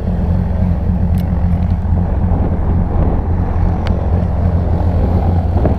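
Small propeller aircraft's engine running steadily at idle, a loud, even drone.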